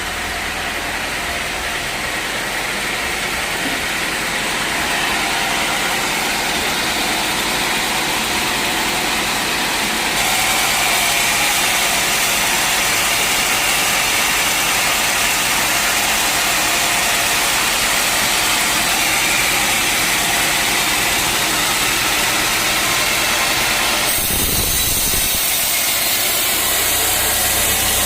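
A sawmill running with its saw cutting through a teak log: a steady, loud mechanical whir. The sound changes abruptly about ten seconds in and again near the end.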